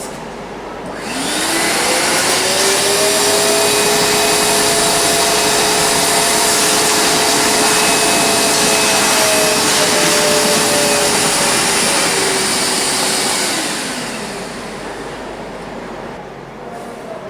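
Kärcher wet-and-dry vacuum cleaner switched on: the motor spins up about a second in and runs steadily with a loud whooshing hiss. It is switched off near the end and winds down.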